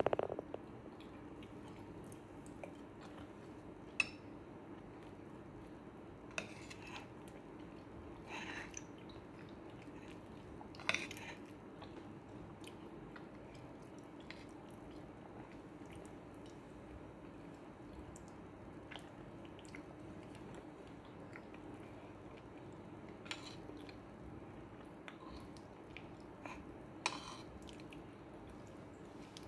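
Close-up eating sounds: soft chewing and mouth sounds, with a few short clinks and scrapes of a metal spoon on a ceramic plate, over a steady low hum.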